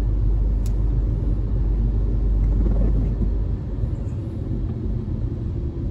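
Steady low rumble of a car driving on a wet road, heard from inside the cabin, with a single sharp click about a second in.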